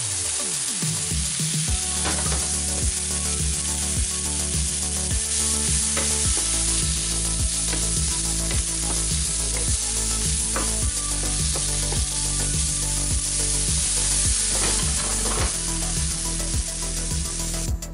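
Apple slices sizzling as they fry in butter in a frying pan, stirred with a wooden spatula that scrapes and knocks against the pan a few times. The sizzle cuts off just before the end.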